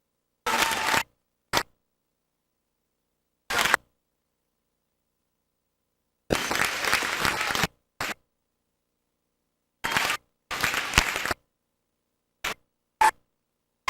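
Crowd noise and applause in a gym, chopped into about nine short fragments by repeated dropouts to dead silence. The audio track is cutting in and out.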